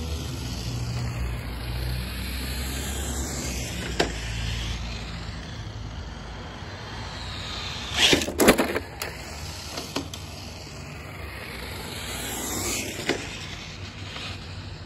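Brushless electric motor of a Traxxas TRX-4 Sport RC truck whining, rising and falling in pitch several times as it drives. A few sharp knocks come about eight seconds in.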